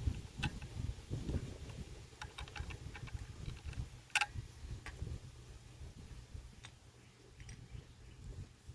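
Scattered light clicks and knocks of tools and metal parts being handled while a small engine is taken off a motorized bicycle, with one sharper click about four seconds in, over low handling rumble.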